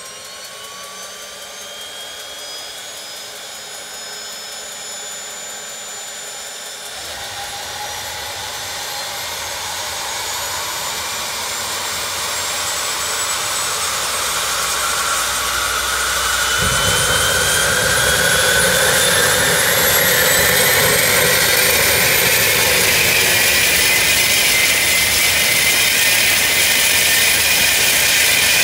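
Lancair's 750 hp turboprop engine starting up: a turbine whine climbs steadily in pitch as the engine spools up, a deeper rumble from the exhaust and propeller comes in about seven seconds in and grows much stronger from about seventeen seconds. The sound keeps getting louder and settles into a steady high whine near the end as the engine reaches speed.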